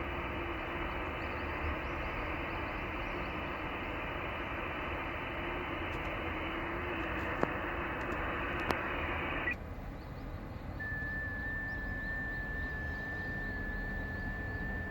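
Ham radio transceiver audio on the 21 MHz band: a steady hiss of band noise through the receiver, with two sharp clicks. About nine and a half seconds in the hiss cuts off suddenly, as when the rig switches from receive to transmit. From about eleven seconds a single steady high tone follows, stepping slightly in pitch, as an FT8 signal does.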